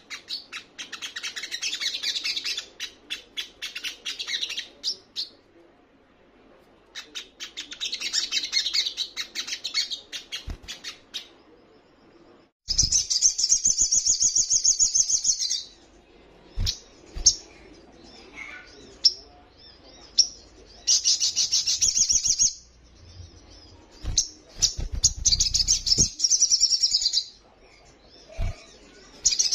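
Olive-backed sunbird singing: rapid, high chattering trills in about five bursts of a few seconds each, with short pauses between, and a few soft dull thumps in between.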